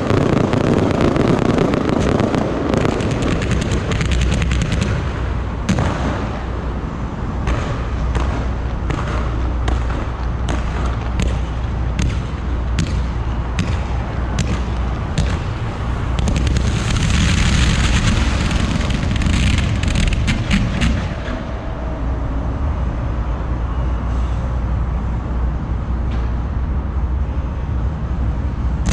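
Fireworks display: a continuous barrage of aerial shell bursts and crackling stars, sharp reports following one another throughout over a deep rumble. About two-thirds of the way through, a louder stretch of hissing comes in.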